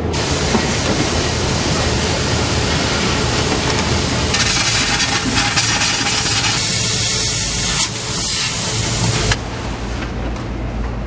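Loud, steady hiss of pressurised air, growing stronger and brighter about four seconds in and cutting off suddenly about nine seconds in.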